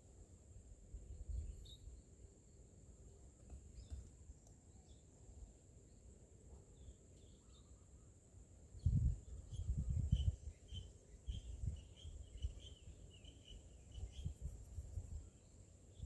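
A steady, high insect drone. Faint bird chirps come in a quick run about halfway through, over low rumbles that are loudest just after the midpoint.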